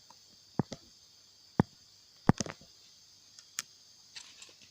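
Scattered sharp clicks and knocks, about seven at irregular intervals, from hand tools working on a laptop battery pack's hard plastic case.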